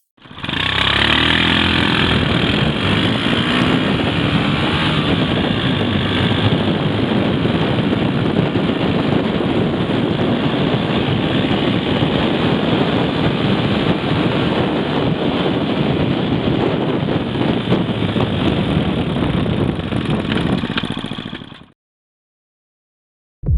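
Honda CD90 Benly's small single-cylinder four-stroke engine running steadily, with some revving in the first few seconds; the sound cuts off abruptly near the end.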